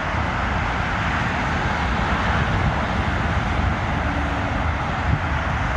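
Steady road and vehicle noise: an even low rumble with a hiss over it, unchanging throughout.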